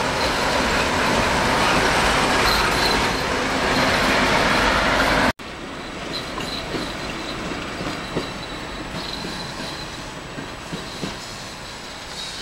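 Two coupled diesel locomotives passing close by, their engines and rolling wheels loud. About five seconds in, the sound cuts to the locomotives further off, rolling on more quietly with faint high wheel squeal and occasional clicks over the rail joints.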